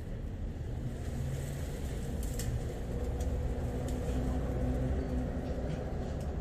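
Low, steady rumble of a motor vehicle running nearby, with a faint engine hum that swells a little through the middle. A few faint light clicks sound over it.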